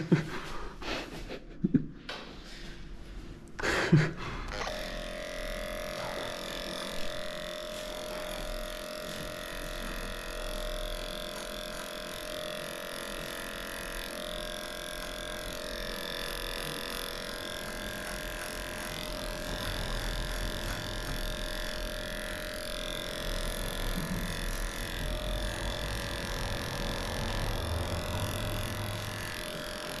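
Electric dog-grooming clipper running steadily while shaving a matted coat, a constant hum with a fixed pitch. In the first few seconds there are a few sharp clicks and knocks, as a shorter clipper blade is fitted, before the motor settles into its steady run.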